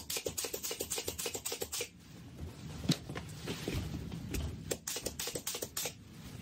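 Air-powered hand tool worked over a neoprene wetsuit, clicking rapidly at about ten a second in two runs with a pause between them.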